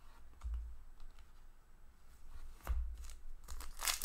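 Hockey trading cards slid and flicked against each other by hand as a stack is flipped through, with soft scuffs, light clicks and a couple of dull bumps. Near the end a louder crinkling rustle starts as a foil card pack is picked up to be opened.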